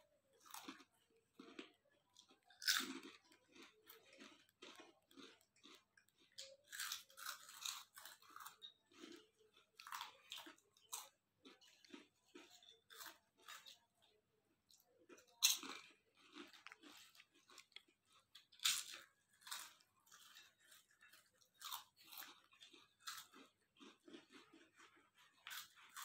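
Two children biting and chewing crisp potato chips: a steady run of irregular crunches, with a few sharper, louder bites about three seconds in and again around fifteen and nineteen seconds.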